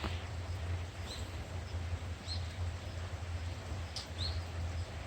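A small bird giving short, high chirps every second or two, over a steady low rumble.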